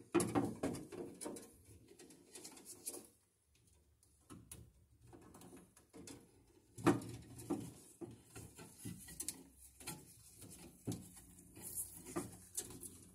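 Stiff copper building wire being bent and worked into a metal electrical subpanel with pliers: irregular rustling, scraping and small clicks of wire and tool against the sheet-metal box.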